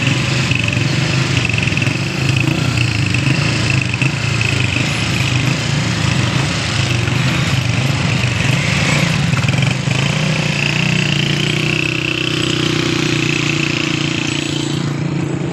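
Tractor and motorcycle engines running together, a continuous low engine hum.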